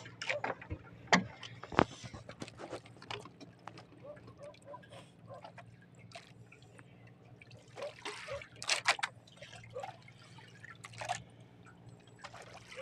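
Water dripping and trickling onto a wooden boat deck from a wet landing net, with two sharp knocks about one and two seconds in. A steady low hum runs underneath.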